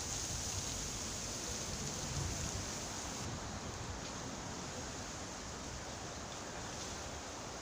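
Wind blowing through autumn leaves, a steady rushing rustle, with low buffeting on the microphone in the first two seconds or so.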